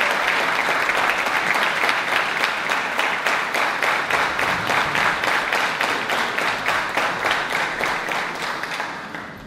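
Audience applauding in a hall, the clapping thinning out and dying away near the end.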